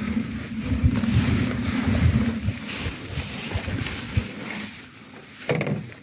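Wind buffeting the microphone: a loud, uneven low rumble that falls away about four seconds in, with a short rustle near the end.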